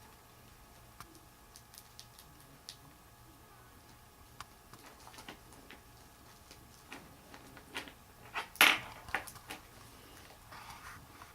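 Cockatiels playing, making scattered light clicks and taps, with a quick cluster of louder clicks about eight and a half seconds in.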